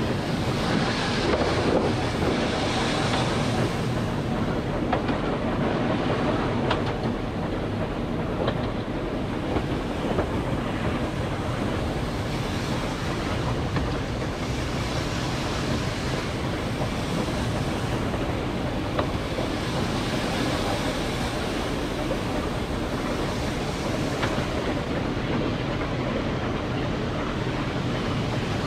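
Hunslet 0-6-0 saddle-tank steam locomotive and its train running steadily along the track: a continuous rumble of wheels on rail with wind on the microphone, and a few faint clicks.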